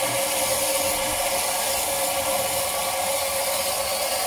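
Water rushing steadily out of an opened bleed valve on a hydropneumatic pressure system, a constant hiss as the tank pressure drops toward the pump's 20 psi cut-in point.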